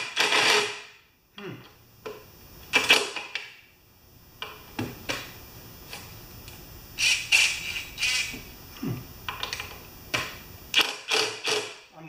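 Irregular short metallic clatters and rattles of tools and sockets being handled and fitted on a lawn mower engine's carburetor mounting bolts. There are about a dozen quick bursts with short pauses between them.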